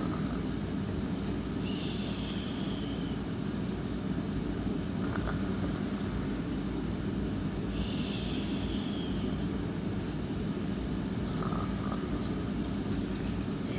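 A sleeper snoring and breathing slowly: a soft, slightly falling hiss-whistle on each breath, about every six seconds (twice, and again starting near the end), with a faint brief catch between breaths, over a steady low rumble.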